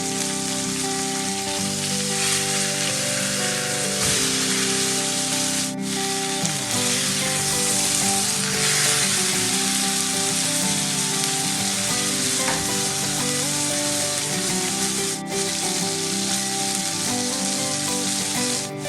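Steak sizzling steadily in a hot pan of melted butter and garlic as it is basted.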